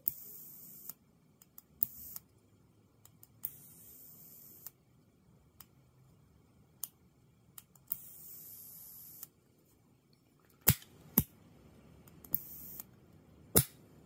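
Zippo double-beam plasma arc lighter insert firing: about five bursts of high-pitched electric hiss, some under half a second and the longest over a second, each started by a small click of the push button. In the last few seconds, three loud metallic clicks from the lighter's case and lid.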